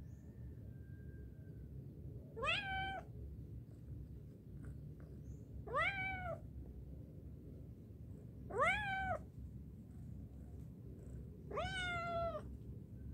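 Young ginger tabby cat meowing four times, a few seconds apart, each call rising and then falling in pitch: the calls of a cat up on a high ledge that is afraid to climb down.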